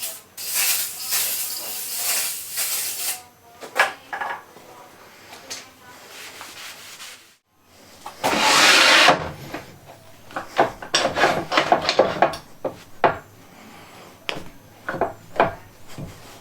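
Unpacking noises: rustling of packing material for the first few seconds, then a loud scrape and a run of sharp wooden knocks and clicks as wood and tool parts are handled.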